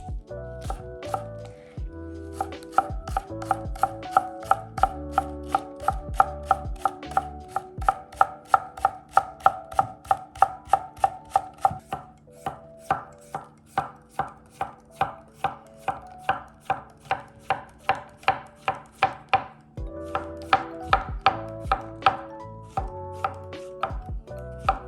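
Chef's knife (a Miyabi Birchwood SG2 gyuto) chopping on a cutting board in quick, even strokes, about three a second, with background music playing underneath.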